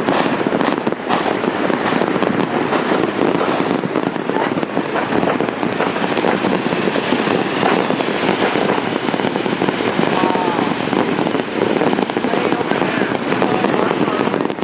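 A dense, continuous barrage of firecrackers and fireworks going off all around, one unbroken crackle of countless small bangs with no pause.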